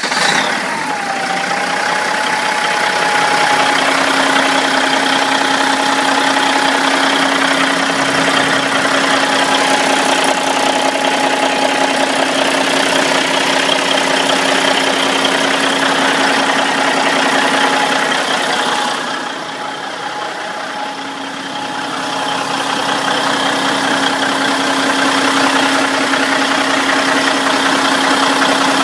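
Caterpillar 3406B inline-six turbo diesel idling steadily with a constant whine, settling right after starting with a tone that falls in pitch in the first second. The level dips for a few seconds about two-thirds of the way through.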